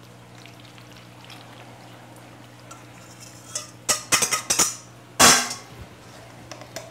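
Vinaigrette pouring quietly from a stainless steel bowl through a plastic funnel into a squeeze bottle. From about three and a half seconds in come a run of sharp clicks and clinks as the metal bowl and funnel are handled, and one louder knock with a short ring a little after five seconds.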